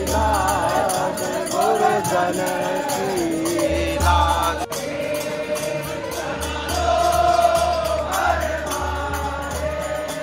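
Samaj gayan: a group of voices singing a devotional pada together in unison, over a steady percussion beat.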